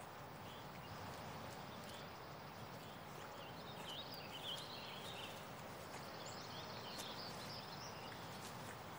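Faint outdoor ambience: a steady soft hiss with scattered high, short chirps, busiest around the middle.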